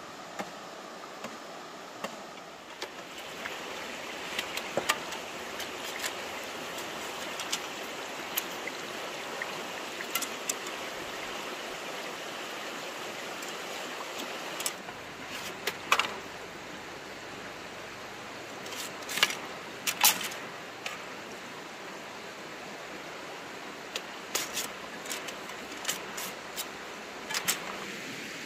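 Stream water running steadily, with irregular sharp knocks and clicks now and then, several close together near the end.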